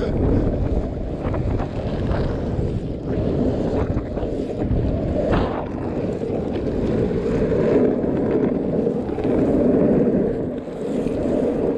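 Surfskate wheels rolling over rough asphalt with a steady rumble that swells and fades as the boards pump through the rollers, mixed with wind rushing over the microphone.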